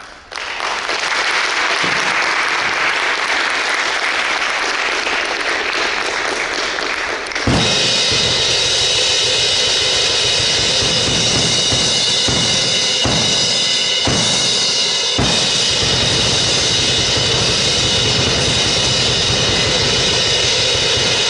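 Audience applauding. About seven seconds in, a band's drum kit comes in with a heavy bass-drum and cymbal hit, then plays on with cymbals ringing and repeated bass-drum strikes.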